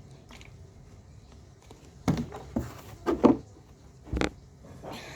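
Handling noises: a run of short knocks and taps about two to three seconds in, then a single heavier thump about four seconds in.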